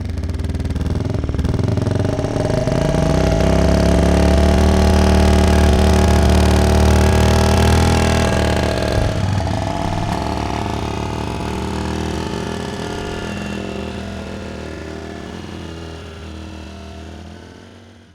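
Motorcycle engine running at a steady note. It grows louder over the first few seconds, shifts briefly about halfway, then fades away slowly until it stops near the end.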